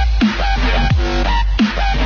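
Background electronic music with a heavy bass line and repeated falling pitch sweeps.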